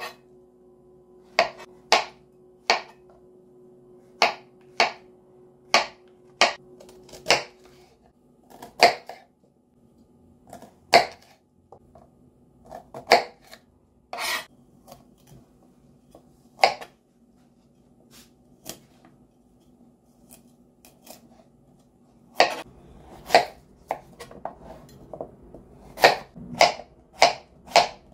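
Kitchen knife cutting vegetables on a plastic cutting board: single sharp knocks of the blade hitting the board every second or two, then a quicker run of cuts, about two a second, over the last several seconds.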